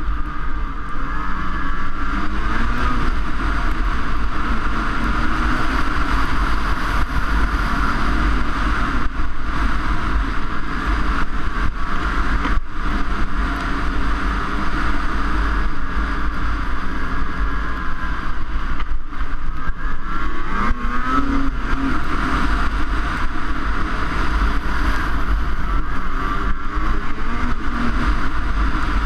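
Snowmobile engine running under way on the trail, its pitch rising and falling as the throttle is worked, notably about two seconds in and again around twenty seconds in, over a steady low rumble.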